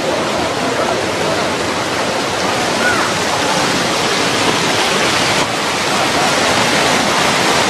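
Floodwater rushing, a loud, steady rush of fast-moving water.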